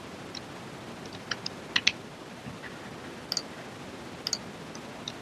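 A few scattered keystrokes on a computer keyboard, with the loudest two close together about two seconds in, over a faint steady hiss.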